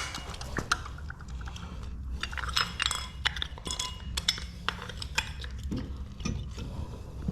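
Irregular light metallic clinks and clicks of tools and hardware being handled during a toolbox wheel swap.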